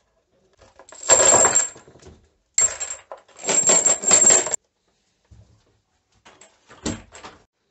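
A bunch of metal hex keys clattering and rattling into a plastic bottle in two loud spells, with a bright metallic jingle, followed by a few faint clicks.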